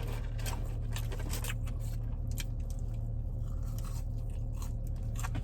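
Close-up chewing and eating noises, with scattered small crackles and clicks over a steady low hum.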